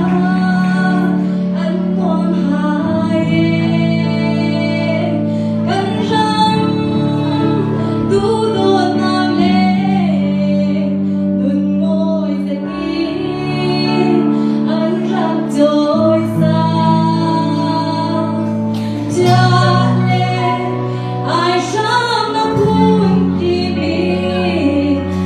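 A woman singing a slow song with a live band: electric and acoustic guitars and keyboard, with long held low notes underneath her voice.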